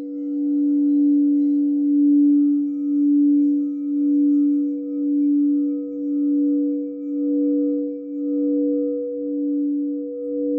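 Singing bowl sounding a long, sustained low tone with fainter higher overtones. The tone swells and fades about once a second as it rings.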